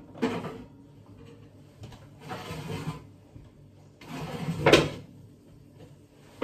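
Oven door and ovenware being handled: three scraping, sliding noises, the last building to a sharp clack, and a short thump right at the end.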